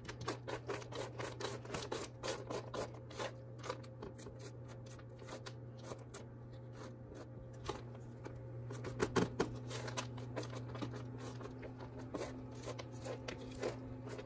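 A spatula stirring and scraping seasoned pumpkin seeds across a parchment-lined metal sheet pan, tossing them partway through roasting: a long run of quick, scratchy scrapes and rustles. A steady low hum runs underneath.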